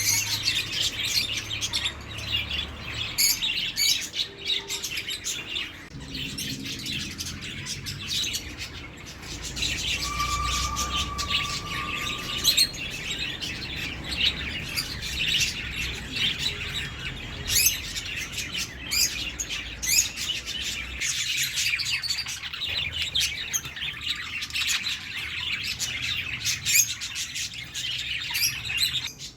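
A flock of small birds chirping continuously: a dense chatter of quick, high calls overlapping one another, with one longer steady note a little after ten seconds in.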